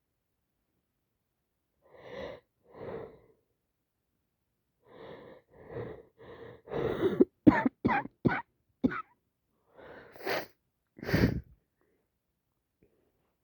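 A person with a heavy head cold coughing and sneezing. It starts with a few soft breaths, then comes a quick run of short, sharp bursts about halfway through, and two louder ones near the end.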